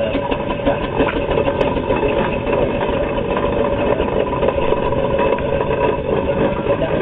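McLaren steam traction engine driving slowly past at close range, its engine and gearing running with a loud, steady mechanical noise.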